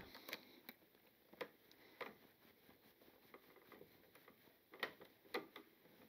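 Faint, scattered clicks of a plastic wire nut being twisted onto a three-wire splice of copper ground wires.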